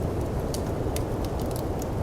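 Snowstorm wind as a steady low rumble, with a wood fire crackling on top in a few sharp pops.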